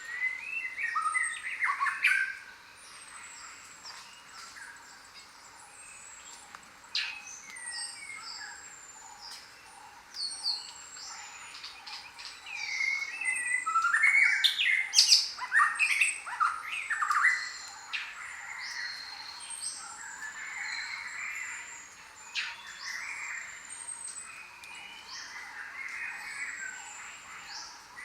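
Many birds calling at once: a mix of chirps, squawks and whistles, with a thin high whistle that slides down in pitch again and again. The calling is busiest a little past the middle.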